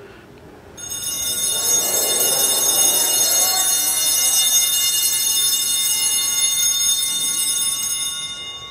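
Altar bells rung continuously at the elevation of the host during the consecration. The bells set in about a second in, keep up a steady shimmering ring for about seven seconds, and fade away near the end.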